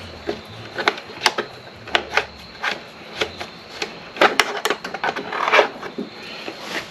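Hands working parts and tools during a motorcycle fairing light install: irregular sharp clicks and taps, about one every half second, with a longer scraping rub about five seconds in.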